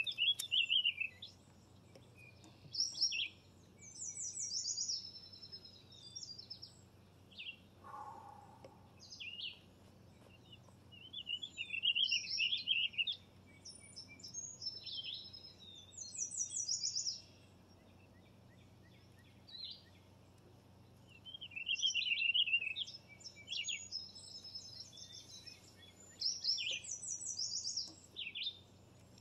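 Songbirds singing in repeated bouts of high chirps and trills, several overlapping at times, with short quiet gaps between phrases.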